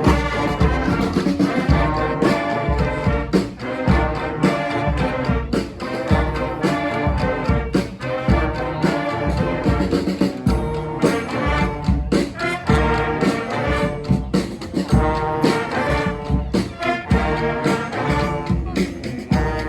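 Street band playing live: brass horns sounding a tune over a steady drumbeat.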